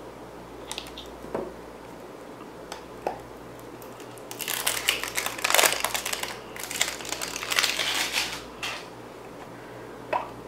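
Plastic wrapping being snipped with small scissors and then peeled and crumpled off a small plastic pot: a few light snips and clicks, then two stretches of loud crinkling in the second half.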